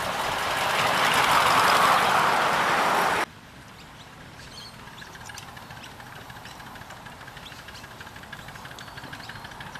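Miniature live-steam locomotive running close by, its steam and running noise swelling to a loud hiss that cuts off abruptly about three seconds in. After that a quieter, more distant miniature steam locomotive runs with faint rapid ticking.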